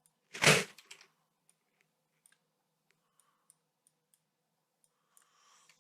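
Scattered faint computer mouse clicks, with one short, loud burst of noise about half a second in.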